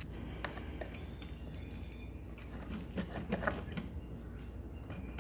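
Small clicks and scratching of pliers and fingers squeezing the plastic locking tabs of a mower engine's shutoff cable to work it out of its bracket, with a cluster of clicks about three seconds in.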